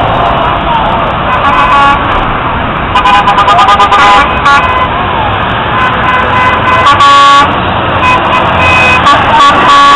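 Decorated trucks driving past with their horns honking over engine and road noise: a quick run of short toots about three seconds in and one loud horn blast about seven seconds in.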